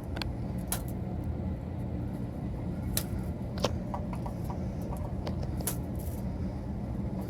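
A steady low machinery hum with a few light clicks and jingles scattered through it.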